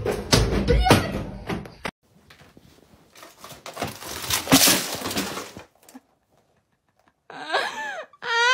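Wooden picture frames clattering and banging as they are knocked off a wall. Then a plastic box of medicines and blister packs clatters and crashes to the floor, with one sharp bang about four and a half seconds in. Near the end comes a long wavering wail.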